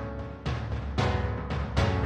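Dramatic soundtrack music: three heavy timpani-like drum strikes, roughly every half to three-quarters of a second, over held orchestral tones.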